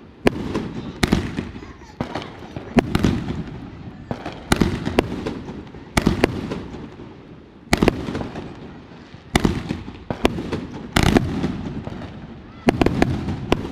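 Fireworks shells bursting overhead: about a dozen sharp bangs at irregular gaps of one to two seconds, each trailing off in a rumbling echo.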